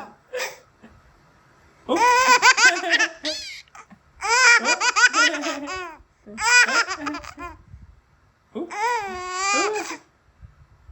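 Baby laughing out loud in four high-pitched bursts of giggling, with short pauses between them.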